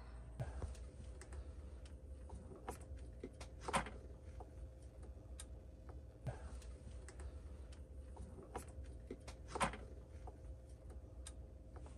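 Faint, irregular clicks and light taps over a low steady hum, with a few sharper ticks spread through.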